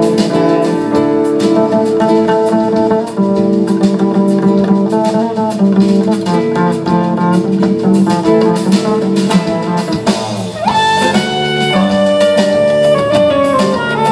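Live band playing an instrumental passage of an Italian pop song: acoustic guitar over keyboard, double bass and drums. About ten seconds in, a woodwind line glides up and holds high notes.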